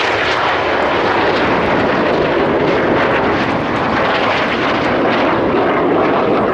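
Loud, steady jet noise of BAE Hawk display jets passing low over the crowd during a head-on opposition pass.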